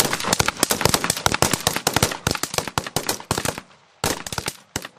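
Rapid 5.56 mm rifle fire from several Marines' M4 and M27 rifles on a firing line, shots overlapping densely for about three and a half seconds. After a brief pause, a few more quick shots come near the end.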